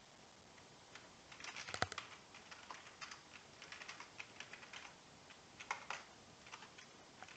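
Faint typing on a computer keyboard: quick runs of keystroke clicks, beginning about a second in, with short pauses between bursts.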